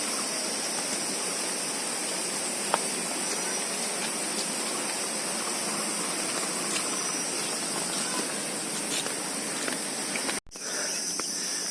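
Steady rush of flowing water, with a constant high insect drone over it. The sound cuts out for a moment near the end, then resumes.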